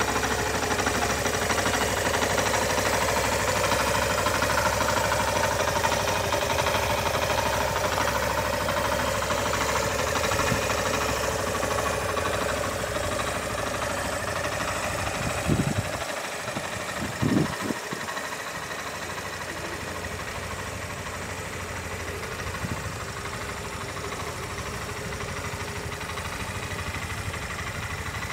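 Suzuki RV125 Van Van's single-cylinder four-stroke engine idling steadily, with two brief low thumps a little over halfway through.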